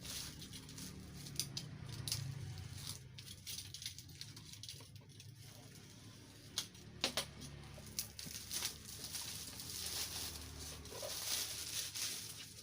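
Cardboard product box being handled and pried open by hand: scattered taps, clicks and light rustling of the packaging.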